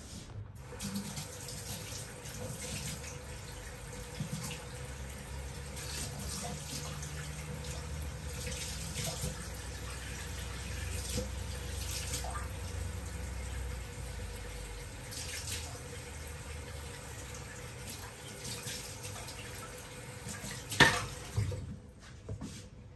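Water running from a kitchen tap into a sink, steady, with a low rumble that fades out about two-thirds of the way through. A sharp knock near the end.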